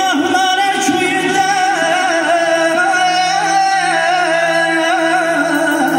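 A man singing an ornamented Azerbaijani song through a microphone and PA, with long held, wavering notes. A saz and an electronic keyboard accompany him, the keyboard holding a steady low drone.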